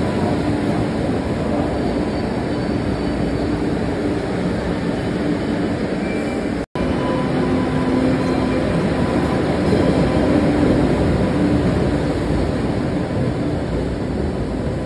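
MBTA Green Line light-rail train rolling past along a station platform: a steady rumble of wheels on rail with a continuous motor hum. The sound cuts out for a split second about halfway through.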